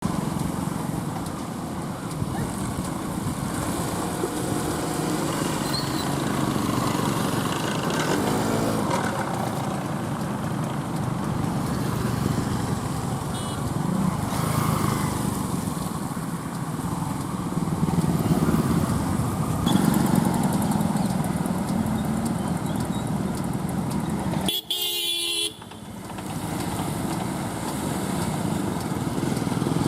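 Road traffic: car and motorcycle engines running, with occasional horn toots, as vehicles drive through flood water. The sound breaks off briefly near the end.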